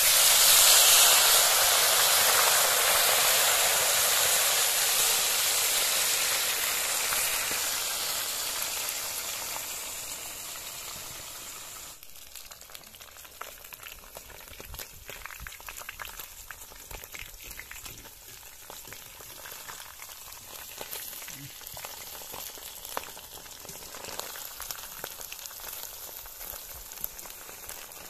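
Small fish dropped into hot oil in a wok, setting off a sudden loud hissing sizzle. The sizzle fades steadily over about twelve seconds into a quieter frying with scattered crackles and pops.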